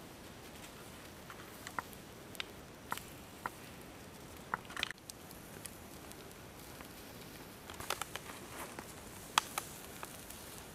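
Pork roasting on a stick over embers: scattered sharp pops and crackles over a faint steady hiss, a quick cluster of pops near the end with one louder pop.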